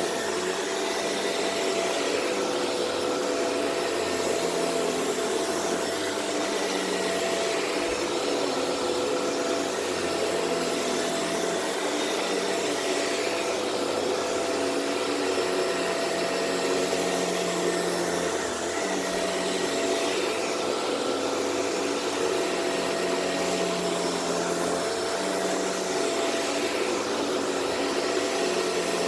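Shark Rotator Powered Lift-Away upright vacuum running steadily on carpet, its motor a constant whine with a full hiss of suction, the tone shifting slightly with each push and pull of the head.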